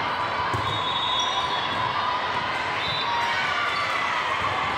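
Indoor court game sounds: a ball thudding on the floor a few times and sneakers squeaking, over a steady hubbub of voices.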